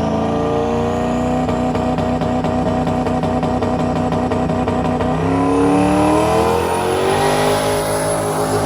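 Car engine running under load as the car accelerates, its pitch climbing about five seconds in and again near the end.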